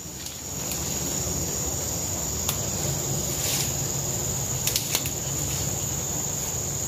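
Insects droning in a steady high-pitched chorus, with a few faint clicks partway through.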